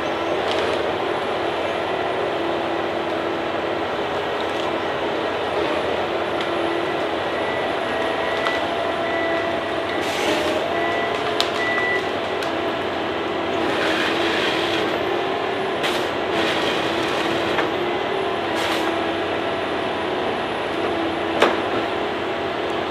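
Heavy tree-cutting machine working: its engine runs steadily with a whining tone that shifts in pitch, and several sharp cracks break through.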